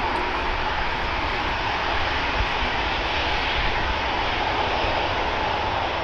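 Airliner engines running steadily, with gusting wind buffeting the microphone as a ragged low rumble.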